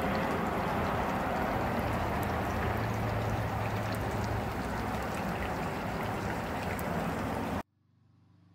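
Steady outdoor rushing noise with a low hum underneath and a few faint ticks, cutting off suddenly near the end.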